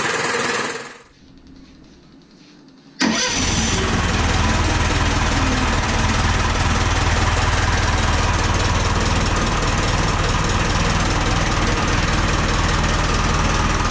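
Rebuilt Perkins diesel engine on its first run after repair: its revs fall away and the sound drops out about a second in, then it comes back abruptly about two seconds later and the engine runs steadily.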